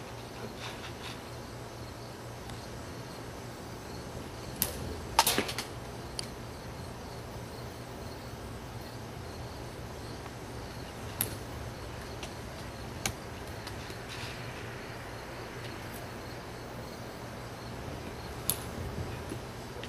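Baseball bat swung at tossed dried soup beans, giving a handful of short, sharp clicks as beans are struck. The loudest is about five seconds in, with a brief rattle after it; others come near the middle and near the end.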